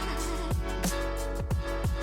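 Electronic background music: a held deep bass under steady synth tones, with a falling-pitch bass drum hit about twice a second.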